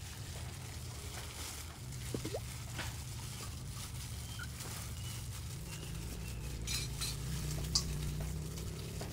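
Pork cheeks being mixed with satế chili marinade in a bowl: soft stirring and handling noises with scattered small clicks and clinks, and one sharp click near the end, over a low steady rumble.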